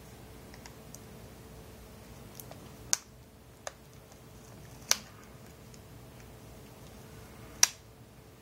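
Small sharp clicks and taps of hands working on a laptop's screen assembly: three distinct clicks about 3, 5 and 7.7 seconds in, one softer click between the first two, and a few faint ticks.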